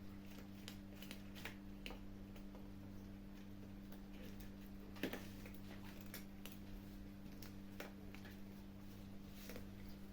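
Kittens eating, with irregular small crunches and clicks of chewing and one sharper knock about five seconds in, over a steady low electrical hum.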